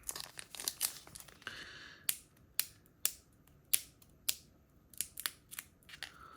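Pokémon trading cards and booster-pack foil being handled: a run of crisp snaps and crinkles, about two a second, with a brief rustle about one and a half seconds in.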